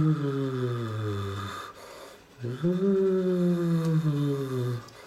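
A person's voice making two long, drawn-out wordless vocal sounds, each sliding slowly down in pitch, with a short break between them.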